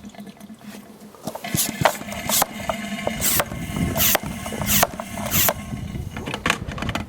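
Hand-pumped Pela 6000 vacuum oil extractor drawing old petrol out of a lawnmower fuel tank through its tube, with about seven short hissing, slurping bursts from about a second and a half in as the tank runs dry and air is sucked in with the fuel.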